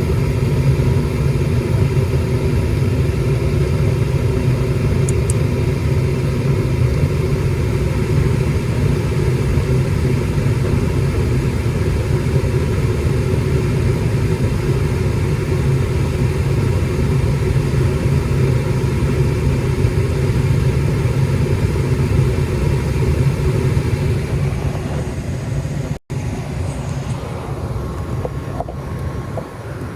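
Goodman gas furnace running with its burners lit and the blower fan on: a loud, steady low rumble with a hum of steady tones, from a unit that shakes badly; the technician suspects something loose in the heat exchanger. The sound eases off a little about 25 seconds in and cuts out for an instant just after.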